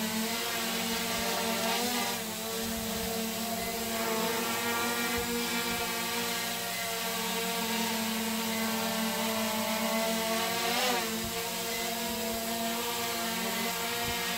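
Small quadcopter drone hovering, its motors and propellers giving a steady buzz of several tones, with short wavering shifts in pitch about two seconds in and again near eleven seconds as it corrects its hover.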